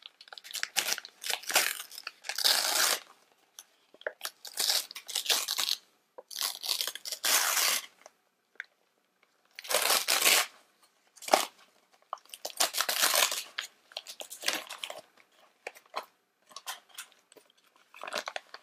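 Gift-wrapping paper being torn and crumpled off a boxed toy, in a series of rips a second or two long with short pauses between them.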